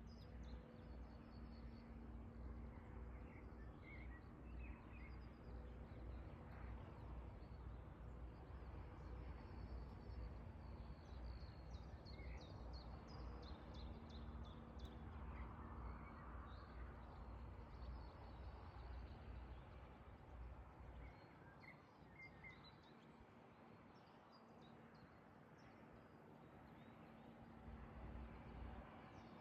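Quiet outdoor ambience: scattered small bird chirps over a faint steady hum and a low rumble, which fades about two-thirds of the way through and returns briefly near the end.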